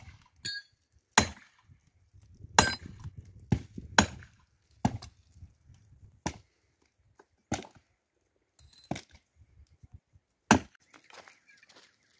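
Firewood being chopped: a series of about ten sharp, separate strikes at an uneven pace, roughly one to one and a half seconds apart.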